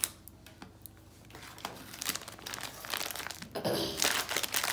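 Clear plastic packaging bag crinkling as it is handled and cut open with scissors. It starts quiet with a few small clicks and grows denser and louder from about a second and a half in.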